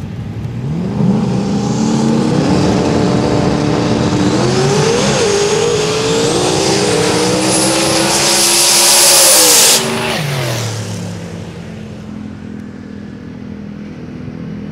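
Two small-tire no-prep drag cars launching side by side and accelerating hard, their engines climbing in pitch, dipping briefly about four seconds in and climbing again. The engine sound is loudest near nine seconds, drops sharply at about ten seconds, then falls in pitch and fades to a lower drone.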